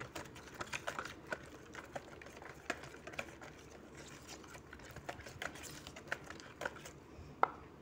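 Silicone-coated wire whisk beating a thin oily liquid in a plastic bowl, its wires clicking and tapping against the bowl in quick, irregular strokes, with one louder knock near the end.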